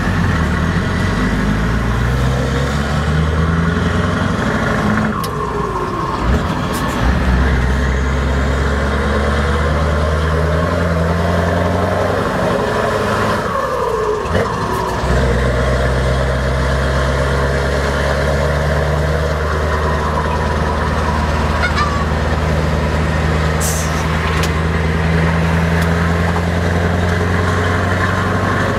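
Scania 164L 580 V8 diesel running through open exhaust pipes, heard from the cab while the truck pulls away. The engine note climbs twice with a break between, drops about fourteen seconds in at a gear change, then runs steadily at constant revs.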